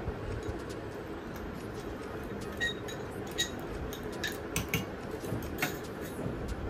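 Small glass bowls and spoons clinking and tapping on a tray as ingredients are handled: a scatter of light clinks, a few ringing briefly, mostly in the second half.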